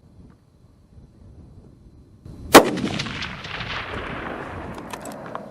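A single rifle shot from a Ruger American bolt-action rifle firing .223 Remington, about two and a half seconds in, followed by a long rolling echo that fades over the next couple of seconds. A few sharp clicks come near the end.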